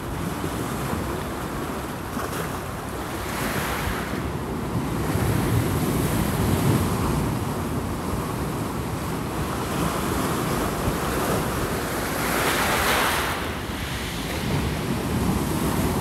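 Heavy surf from a typhoon-driven swell crashing and washing over shoreline rocks: a continuous rushing rumble, with bigger waves breaking in a loud hiss a few seconds in and again about three-quarters of the way through. Wind rumbles on the microphone underneath.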